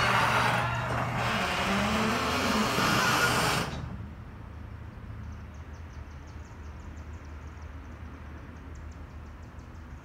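Genie garage door and opener running with loud squealing and rattling, stopping abruptly about four seconds in as the door reaches the end of its travel. A low steady hum with faint rapid ticking follows.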